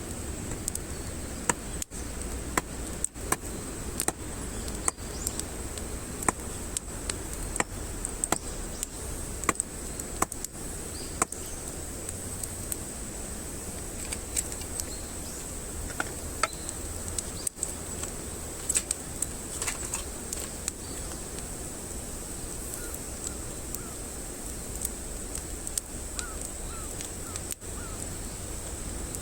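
Burning campfire wood crackling, with irregular sharp pops and snaps over a steady low rush.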